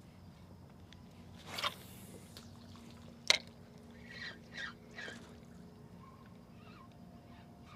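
Small water splashes and drips, with a single sharp click about three seconds in.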